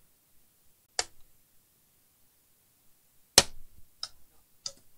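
Sharp plastic clicks as a HP ZBook laptop keyboard is pushed up and its retaining clips snap free. One click comes about a second in, the loudest a little after three seconds, and two lighter ones near the end.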